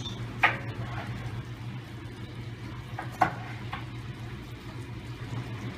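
Lamb patties sizzling gently in butter in a frying pan over low heat, with two sharp clicks, about half a second in and about three seconds in, over a steady low hum.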